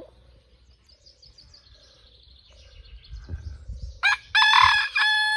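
Rooster crowing: one loud cock-a-doodle-doo that starts about four seconds in, after a mostly quiet stretch with faint small-bird chirps.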